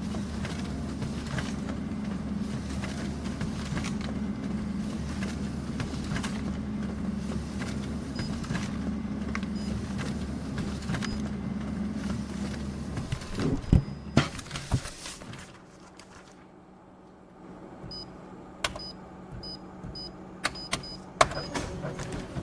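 Office printer or copier running with a steady motor hum and faint ticking, then a few loud clunks at about 14 s as the mechanism stops. After that it is quieter, with a run of short high beeps and sharp clicks.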